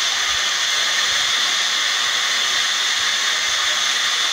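Steam locomotive standing at the platform, letting off steam in a steady, unbroken hiss.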